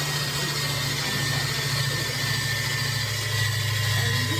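A steady low motor hum with a thin, constant high whine over it, swelling slightly near the end.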